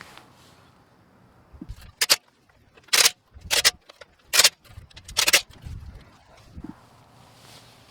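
Five short hissing sprays about two to five seconds in, each a fraction of a second long, with a few dull knocks between them: parts being sprayed clean during a front brake job.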